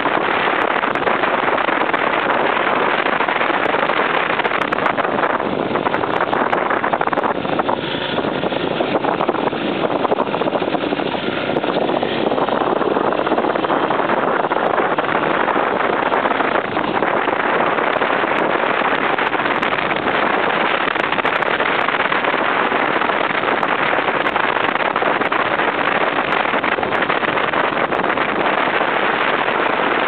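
Off-road motorcycle climbing a gravel forest road, recorded from a handlebar-mounted camera: steady engine and road noise mixed with wind rushing over the microphone.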